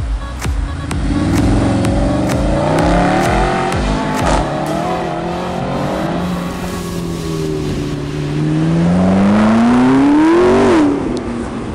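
Sports car engine accelerating through a junction. Its note wavers at first, then climbs steadily in pitch from about eight seconds in and drops off sharply near the end as the driver lifts off or shifts.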